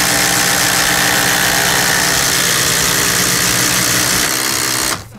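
Two Makita cordless impact drivers, one 40-volt and one 18-volt, running together under load as they bore 25 mm wood drill bits into wood. The steady running cuts off sharply about five seconds in as the bits reach full depth.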